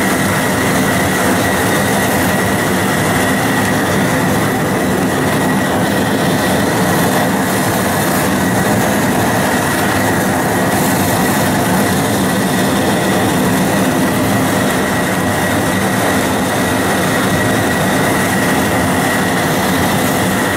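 Outdoor dual-flame gas cooker burner running on high under a large pot of boiling water: a loud, steady rush with a thin, steady high tone over it.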